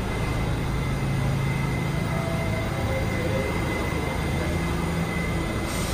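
Steady low rumble of city vehicles, with a faint, steady high whine running through it.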